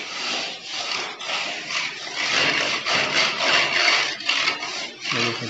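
Wooden hand float rubbed back and forth over fresh cement-sand plaster, a rough scraping rasp in repeated strokes about twice a second. The mason is floating the new patch level with the old plaster above, working it until the surface is finished.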